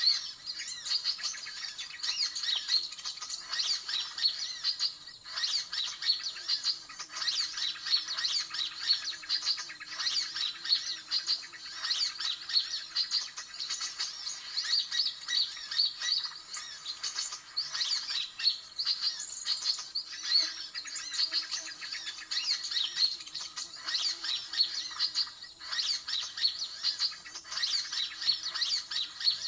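A dense, unbroken chatter of rapid high-pitched small-bird chirps: a 'ribut' bird-trapping lure call, played from a hidden speaker to draw in sunbirds.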